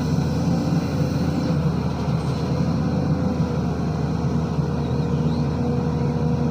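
Diesel engine of a SANY SY215C hydraulic excavator running steadily, with a constant whine over a low rumble.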